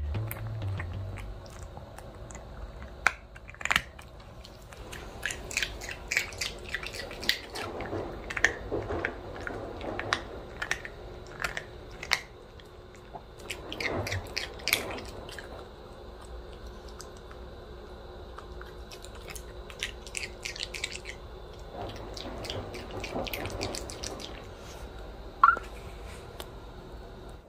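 A Pomeranian puppy chewing and crunching a piece of ice, with many scattered crisp crunches and clicks of its teeth. A brief high squeak sounds near the end.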